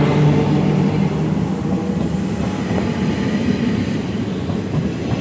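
NS DD-AR double-deck passenger coaches rolling past, a steady rumble of wheels on rail. The electric hum of the NS 1700 locomotive hauling them fades out about half a second in.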